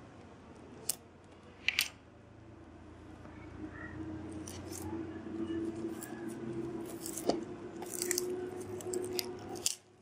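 A small cardboard product box being cut open and handled: a couple of sharp clicks early, then rustling and scraping of cardboard and packaging with scattered clicks, growing louder and stopping suddenly near the end. A steady low hum runs under the second half.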